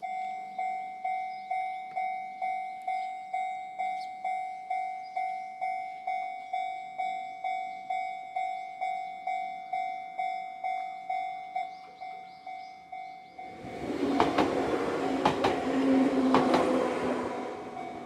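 Japanese level-crossing warning bell on the Enoden line ringing its steady 'kan-kan', about two strikes a second. About 13 seconds in, a small Enoden electric train passes over the crossing, its wheels clicking over the rail joints and drowning out the bell, which shows through again near the end.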